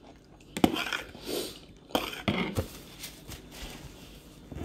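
Close-up mouth sounds of someone chewing food, with a few sharp clicks and soft breathy noises in between.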